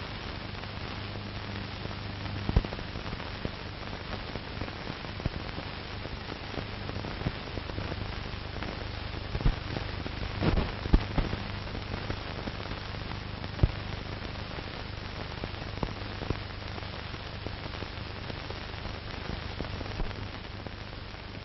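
Background noise of an old recording's soundtrack with no voice or music: a steady hiss and a low mains hum, with scattered clicks and crackles. A few louder pops come about two and a half, eleven and fourteen seconds in.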